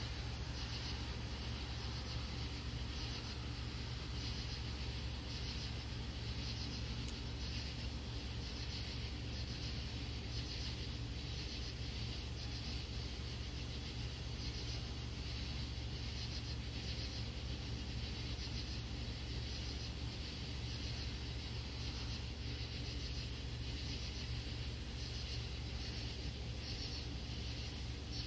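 Night insects chirping in an even, pulsing rhythm over a constant low hum.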